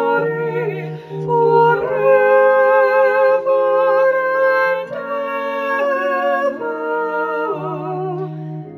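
Slow vocal music: several sustained voices singing chords with vibrato, the harmony changing every second or two.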